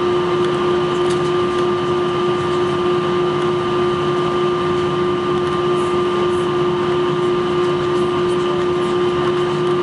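Steady cabin drone of an Airbus A321 taxiing, heard from a seat over the wing: jet engines at idle and air-conditioning hiss, with a constant whine over a low hum.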